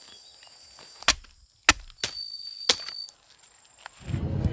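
Sharp chopping knocks, three loud ones between one and three seconds in, over a steady high-pitched insect buzz; a louder rumbling noise begins near the end.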